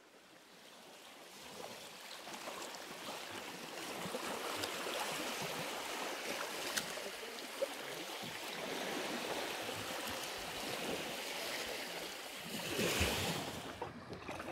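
Sea waves washing and lapping, fading in from silence, with small splashes here and there and a louder wave surge about thirteen seconds in.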